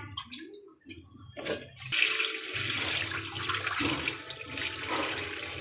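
Rinse water being poured out of an aluminium pressure cooker pot off washed moong dal, a steady splashing pour that starts suddenly about two seconds in; before it, quieter sloshing of a hand working the dal in the water.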